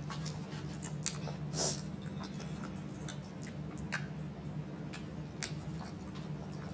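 Eating at the table: scattered wet mouth clicks and lip smacks from chewing burritos, a few small taps, over a steady low hum.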